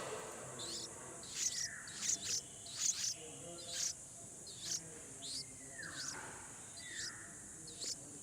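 Baby bird chirping repeatedly: short, sharp high chirps at irregular intervals, roughly one a second, some trailing off in a falling slur.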